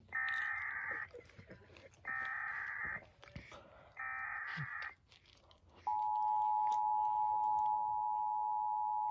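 Emergency Alert System tones: three one-second bursts of the digital SAME data header, about a second apart, then the steady two-tone EAS attention signal, starting about six seconds in.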